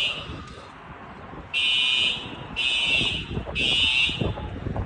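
Electronic alarm beeping in the three-beep pattern of a fire evacuation signal: a pause, then three high beeps about a second apart starting near two seconds in. A low rumble of noise runs underneath.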